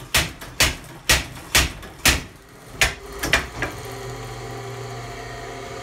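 Shop-built Da Vinci cam power hammer, driven through a slack-belt clutch, striking its tooling at about two blows a second. The blows stop about three and a half seconds in, leaving the steady hum of its belt drive.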